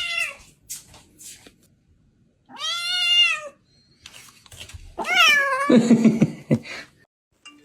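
Domestic cat meowing several times: a meow trailing off at the start, a long meow that rises and falls in pitch about three seconds in, and another about five seconds in that drops in pitch and turns rough.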